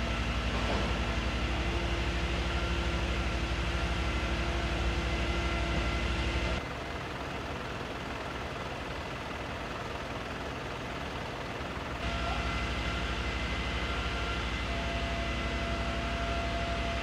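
Steady low engine rumble of emergency vehicles idling, with faint steady tones over it. The sound drops in level about six and a half seconds in and comes back up about twelve seconds in.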